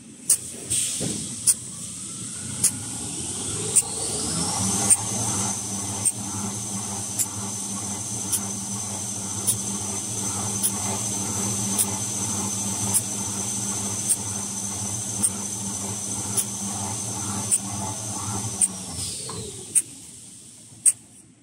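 Kitchen towel paper production machine speeding up over the first few seconds with a rising whine, running steadily, then slowing to a stop near the end with a falling whine. Sharp clicks come about once a second throughout.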